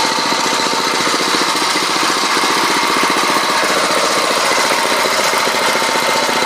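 7 HP Thornado single-cylinder four-stroke kart engine running steadily with rapid, even firing pulses, fitted with its stock muffler and air box and running quite quietly.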